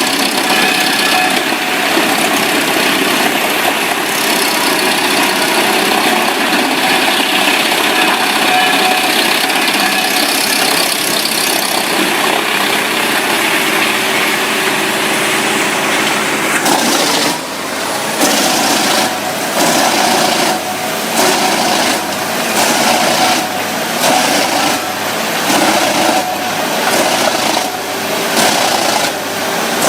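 Heavy wood-processing machinery running loudly under engine power. About halfway through, the sound changes to a regular cycle of strokes, roughly one a second.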